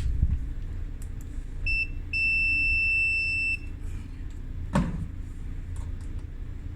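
Meter's continuity beeper: a short beep, then a steady beep of about a second and a half as the probes close a circuit across a dryer part. A steady beep like this means continuity. A single knock follows a little later, over a low hum.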